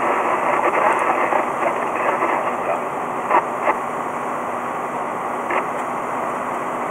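Steady road and engine noise inside a vehicle cruising on a freeway at about 93 km/h, picked up by the dashcam's microphone. Two short clicks come about three and a half seconds in, and another comes near five and a half seconds.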